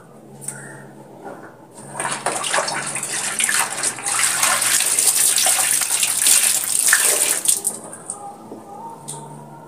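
Laundry being rinsed by hand in a plastic tub of water: splashing and sloshing as the clothes are worked through the water, starting about two seconds in and stopping shortly before the end.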